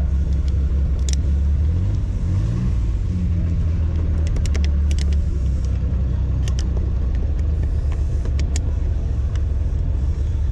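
Car engine running steadily at idle, its pitch rising briefly about two seconds in, with scattered light metallic clicks over it.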